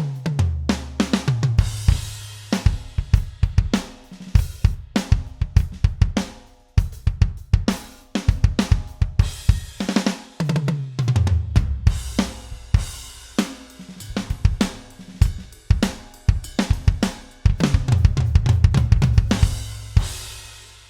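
A drum-kit groove played on an electronic kit triggering the Pearl Mimic Pro module's sampled drums: kick, snare, hi-hat and cymbals, with fills of low drum hits stepping down in pitch twice. It dies away near the end.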